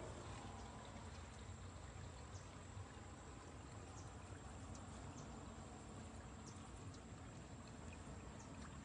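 Quiet outdoor background: a faint steady hiss and low rumble, with a few soft scattered ticks.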